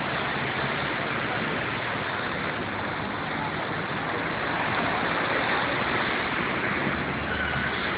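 Sea water washing and splashing among the concrete tetrapods of a breakwater: a steady rush of small waves breaking against the blocks.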